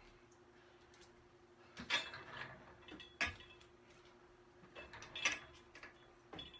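Scattered clanks and knocks, some with a brief metallic ring, as exercise equipment is handled and set down on the floor, over a steady low hum.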